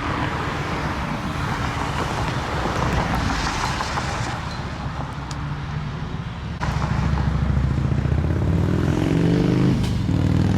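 Road traffic: a steady wash of passing cars. About two-thirds of the way through it jumps louder, and a vehicle engine's hum climbs in pitch as it speeds up.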